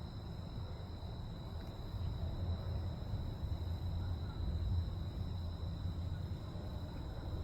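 Outdoor evening ambience: a steady, high-pitched insect drone over a low, uneven rumble.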